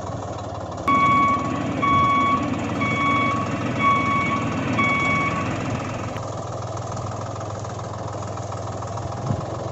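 A vehicle reversing alarm beeps five times at an even pace over a steady idling engine hum, then stops while the engine carries on.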